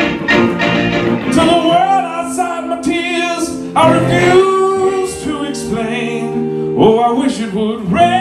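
A man singing a held melody line, coming in about a second in, over two electric guitars playing chords through amplifiers.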